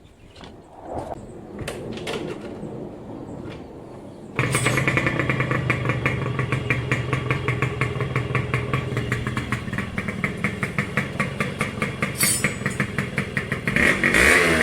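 A few knocks, then about four seconds in a Yamaha RX100's single-cylinder two-stroke engine is heard running at a fast steady putter through its original six-hole silencer, revved up near the end.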